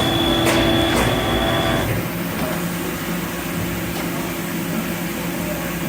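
Steady hum of running machinery in a machine shop, with two light clicks in the first second. The hum's pitch changes about two seconds in.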